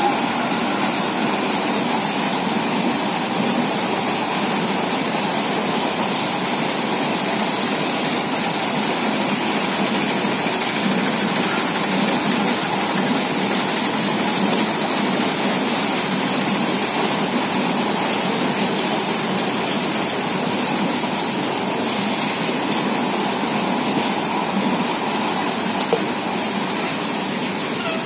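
Steady rushing noise of freight wagons rolling past on the rails, even in level throughout with no horn.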